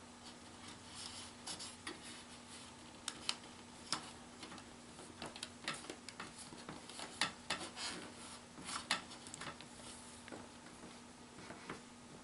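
Scattered light clicks, taps and rubbing of hands working a self-adhesive LED light strip and its wire on a pachinko machine's rail, with a faint steady hum underneath.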